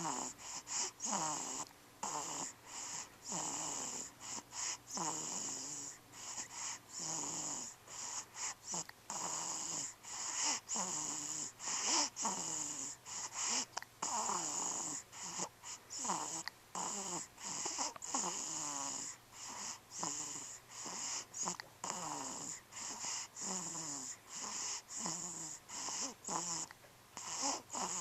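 Repeated hiccups, about one a second, each a short voiced hic that falls in pitch, over a steady high hiss that keeps cutting out briefly.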